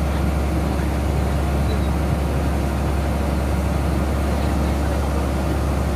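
Motor boat's engine running steadily with a deep, even drone, over the rush of water along the hull.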